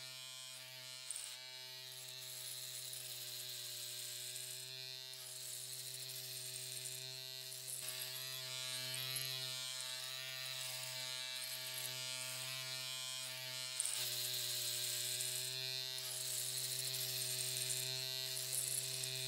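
Electric hair clippers running with a steady buzz while shaving a man's head.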